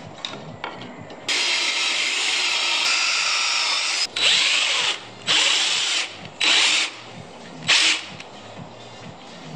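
DeWalt cordless drill boring holes into a wooden workpiece: after a few light clicks, one steady run of about three seconds starts about a second in, followed by four short bursts on the trigger.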